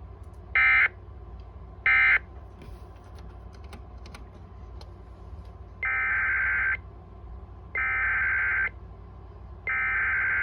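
Emergency Alert System SAME digital data bursts: two short buzzing bursts of the end-of-message code, then after a gap of about three seconds three longer bursts of the header code as the alert starts over. Each burst is a harsh, warbling electronic tone, the short ones louder, over a steady low hum.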